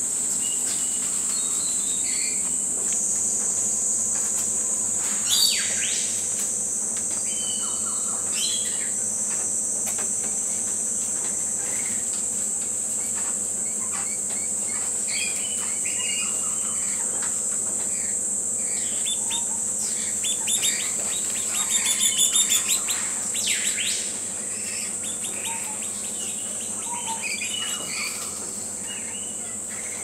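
Rainforest ambience: a steady, high-pitched insect drone with various birds chirping and calling over it, and a louder run of rapidly repeated bird notes about two-thirds of the way through.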